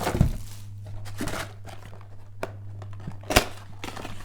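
Trading-card pack wrappers and cards being handled: crinkling and rustling with scattered clicks, one sharp click about three seconds in, over a steady low hum.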